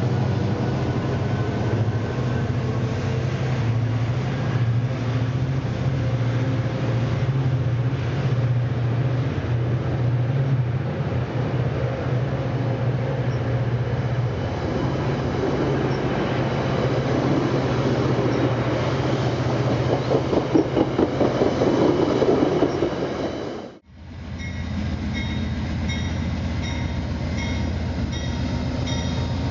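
A diesel-hauled passenger train rolling through the station with a steady low engine drone, its wheels clattering in a quickening rhythm over the rail joints. After a sudden break, another train runs steadily with an evenly repeating high ringing tone over it.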